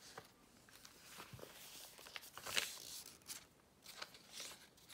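Faint rustling of a handmade paper junk journal's pages being handled and turned, with a short sharp tick about two and a half seconds in.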